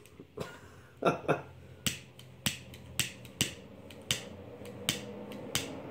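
Butane cigar lighter's igniter clicked over and over, about ten sharp clicks spaced a half second to a second apart, as it struggles to light. A steady hiss sets in during the second half as the flame catches.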